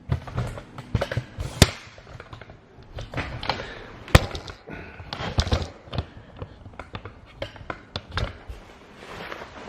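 Irregular knocks, taps and clatter of hard objects being handled and set down, several sharp ones standing out, with no motor running.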